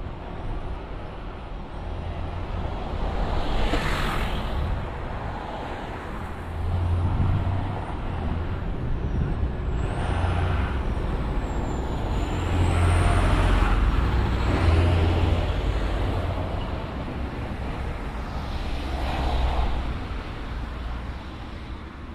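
Road traffic on a busy street: a steady low engine rumble, with about five cars and heavier vehicles passing in turn, each one swelling and fading.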